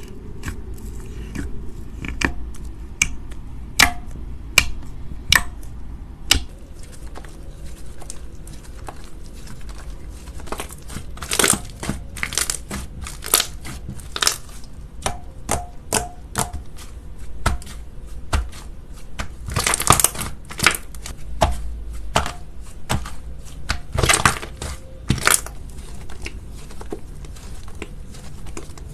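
Slime being squeezed and poked by hand, making irregular sticky clicks and crackling pops that come in denser clusters about midway and again near the end.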